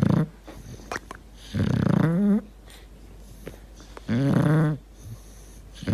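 Bulldog snoring in deep sleep: a snore on each breath, about every two and a half seconds. Each snore is a low, rough drone lasting under a second that ends in a wavering drop in pitch, with faint short clicks in the pauses between.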